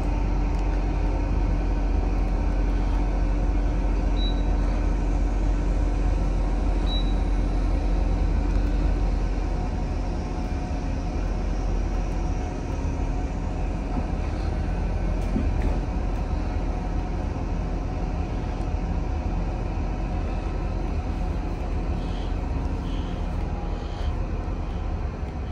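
Steady low engine and road rumble heard from inside a vehicle moving slowly across an airport apron, easing slightly about ten seconds in.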